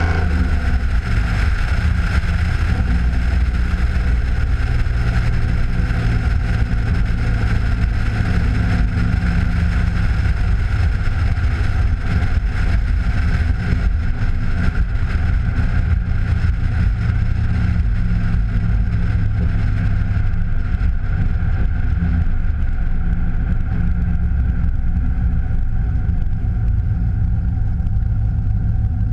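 Chevrolet Camaro SS's LS V8, fitted with Pacesetter long-tube headers and an SLP Loudmouth exhaust, cruising at a steady light throttle with a deep, even exhaust drone. Tyre and wind noise come in over the camera mounted on the outside of the car.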